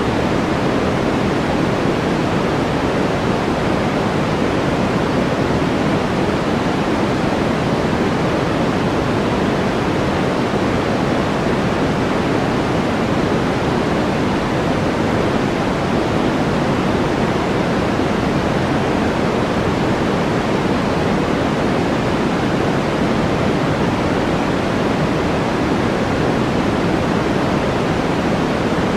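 Steady white-noise background track: an even, unchanging rush that is heavier in the lows than the highs.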